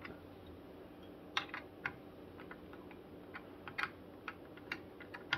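Long Phillips screwdriver turning the mounting screws of a Noctua NH-U12S CPU cooler down onto its bracket: faint, irregular small metal clicks and ticks.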